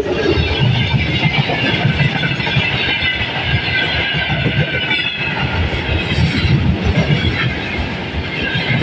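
Freight train wagons rolling past close by: a steady rumble of wheels on the rails, with a high, steady wheel squeal over it.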